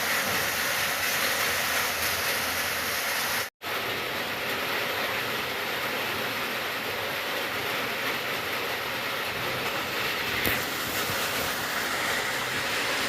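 Steady heavy rain falling, an even wash of noise, cut off to silence for a split second about three and a half seconds in.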